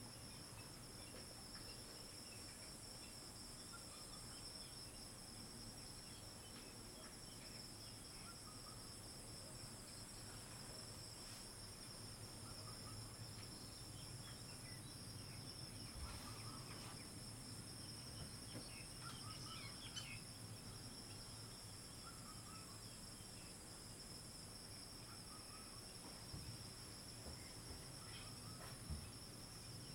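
Faint, steady insect chorus: a continuous high-pitched trill that runs without a break, with a few faint chirps here and there.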